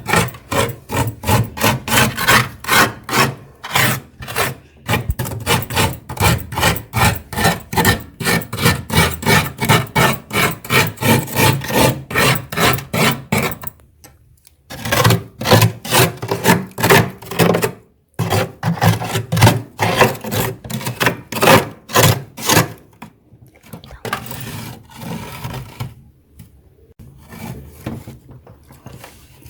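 Frost being scraped off the walls of a freezer in quick, repeated rasping strokes, a few per second, pausing briefly about halfway through and getting softer near the end.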